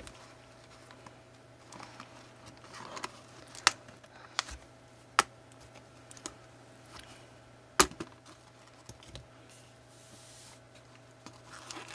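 Scissors snipping to cut a small toy figure free of its cardboard box backing, with light rustling of the cardboard and packaging. About four sharp snips are spread over several seconds, and the loudest comes about two-thirds of the way through.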